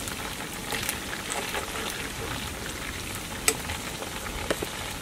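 Chicken drumsticks frying slowly in hot oil in a metal pot over a wood fire, a steady sizzle with scattered crackles and one sharp pop about three and a half seconds in.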